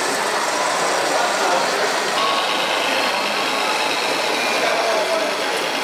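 Steady hall ambience: the simulated engine sounds of radio-controlled model trucks' sound modules running, mixed with background chatter.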